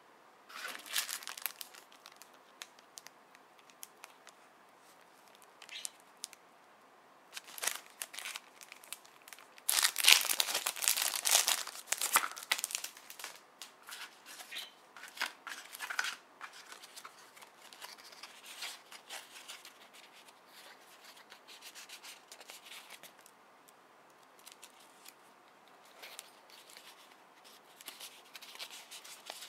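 Clear plastic packaging being peeled and torn open and a paper memo pad handled: irregular bursts of crinkling and tearing, loudest about ten to twelve seconds in, then softer rustling and small clicks of paper and card.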